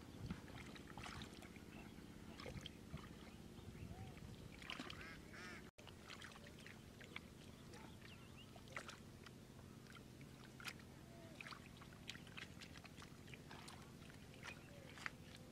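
Faint wet clicks, squelches and small splashes of hands scooping mud and water, scattered irregularly. There is a short call-like sound, like a bird, about five seconds in.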